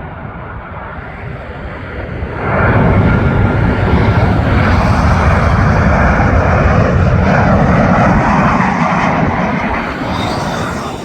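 Jet airliner passing low overhead on landing approach: its engine roar rises sharply about two seconds in, holds loud and steady, then eases off near the end.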